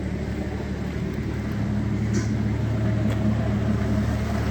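A motor running steadily with a low, even hum that grows slightly louder over the few seconds.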